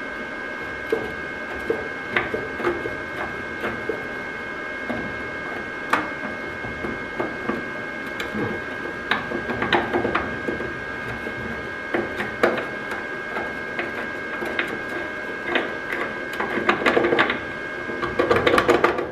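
Arc welding in short, crackling bursts, tacking a steel bracket to a car's underbody. Scattered single clicks fall between the bursts, all over a steady high-pitched hum.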